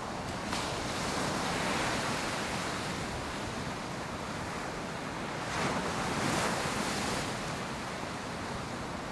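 Ocean surf washing onto a beach: a continuous hiss of breaking waves that swells as waves break, most strongly around the middle, with some wind on the microphone.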